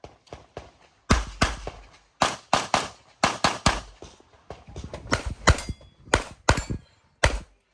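Rapid pistol fire from a Tanfoglio handgun during a practical-shooting stage: about a dozen sharp shots, many in quick pairs, with short pauses between strings. A brief metallic ring follows a couple of the later shots.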